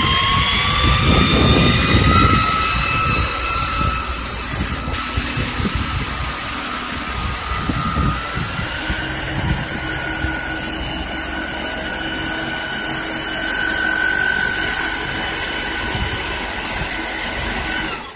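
Fire tender's power-take-off-driven fire pump and Isuzu 4KH1 diesel running hard, with a high whine that rises in pitch over the first couple of seconds and steps up again about eight seconds in. Over it, the steady hiss of the water jet from the roof-mounted fire monitor.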